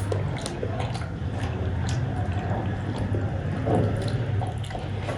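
A person chewing food close to the microphone: wet smacking and small mouth clicks every so often, over a steady low hum.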